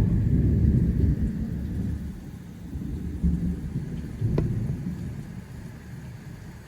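Thunder rumbling loud at first and dying away, with renewed rolls about three and four seconds in, over steady rain.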